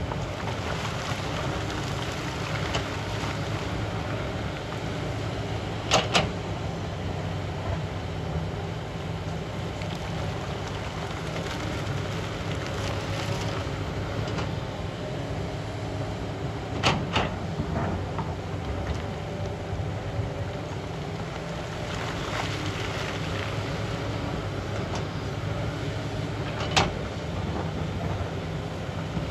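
Sany crawler excavator's diesel engine running steadily under load while the bucket digs and dumps broken rock, with stretches of rock rattling and pouring. Sharp knocks from the bucket striking rock come about six seconds in, around the middle, and near the end.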